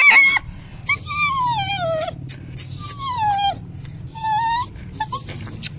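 Young Rottweiler crying in a series of long, high-pitched whines that fall in pitch, three main cries with short gaps, while held down for an injection: distress and fear at being restrained and injected.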